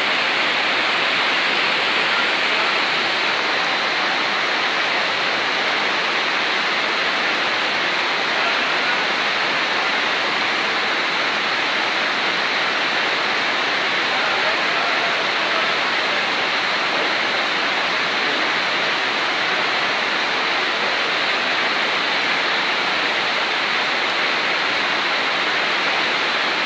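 Torrential rain and floodwater rushing down a street: a loud, steady, unbroken rush of water.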